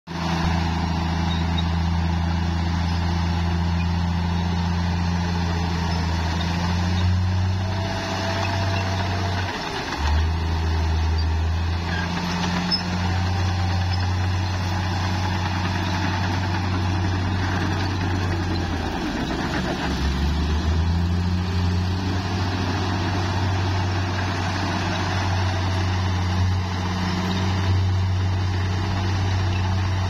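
Bulldozer's diesel engine running hard as it pushes dirt, its deep note dipping and climbing back several times.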